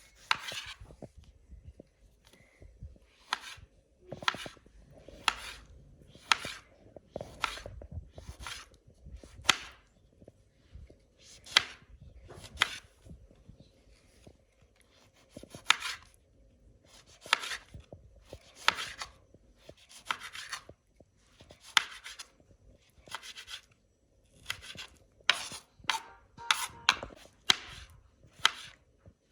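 Knife chopping on a cutting board in separate strokes, about one a second, coming in a quicker cluster near the end.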